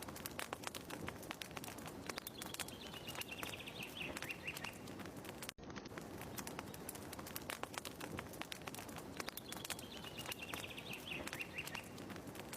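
Looped ambience of a crackling fire with a bird's falling trill, which comes twice, about seven seconds apart; the loop restarts with a brief dropout about halfway.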